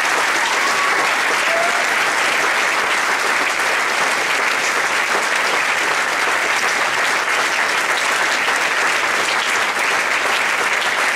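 Crowd applauding loudly and steadily.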